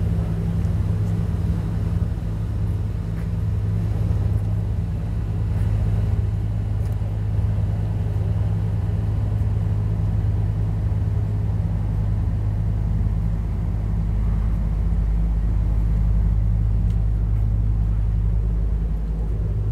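Excursion boat's engine running steadily with a low drone at a fixed pitch, heard from on board.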